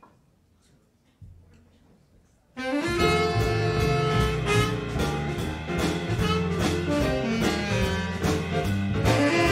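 A live jazz band starts up about two and a half seconds in: tenor saxophone and trumpet over piano, double bass and drums, with a steady beat. Before that it is quiet apart from a single low note just over a second in.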